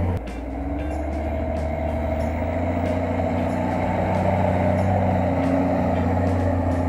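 Claas Xerion 5000 tractor's engine running under load as it pushes chopped maize up a silage clamp with a front blade, its pitch rising slightly midway.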